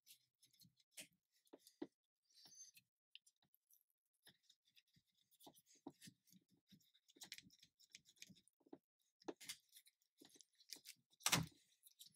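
Faint, scattered clicks and scrapes of a plastic pry tool working under a glued battery cell of a 15-inch MacBook Pro, separating the adhesive tape from the aluminium chassis. There is a louder crack near the end as the cell comes free.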